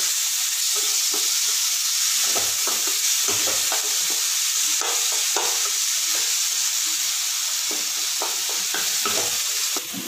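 Chopped onions and tomatoes sizzling in hot oil in a pan, with a spatula scraping against the pan in short, irregular strokes as the mixture is stirred.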